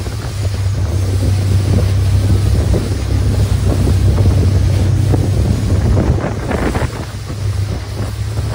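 Longtail boat's engine running steadily at speed, a deep constant hum, with water rushing along the hull and wind buffeting the microphone.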